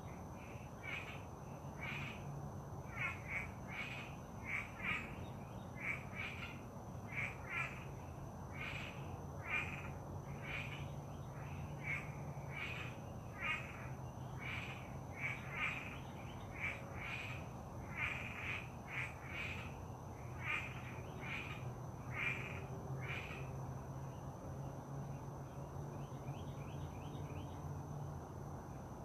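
An animal calling outdoors: a short call repeated once or twice a second for about twenty seconds, then stopping, with fainter quick ticking near the end over a steady high thin drone.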